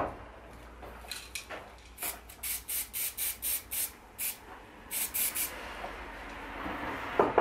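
Aerosol spray-paint can fired in a series of short, rapid hissing puffs, about a dozen, with a pause of about half a second before the last few. A knock at the very start.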